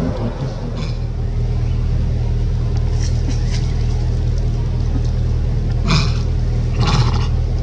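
Steady low rumble throughout, like a distant engine, over which macaques give a few short shrill cries, the loudest two about six and seven seconds in.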